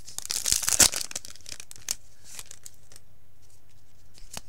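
Foil Yu-Gi-Oh! booster pack wrapper crinkling as it is torn open, loudest in the first second, then thinning to a few scattered crackles. A single sharp click near the end.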